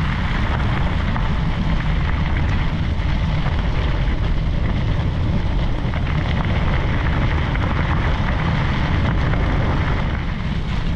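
Wind rushing and buffeting over the microphone together with bicycle tyres crunching over a loose gravel road surface, a steady loud rumble.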